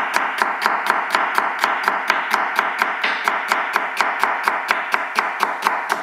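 Chef's knife slicing a celery stalk on a wooden cutting board: quick, even chops, about five a second.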